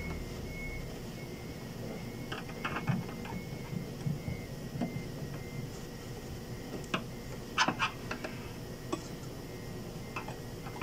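Scattered metallic clicks and knocks from the wiper linkage being handled and fitted inside a Nissan Patrol's cowl top, with a quick cluster of three louder clicks a little over halfway through.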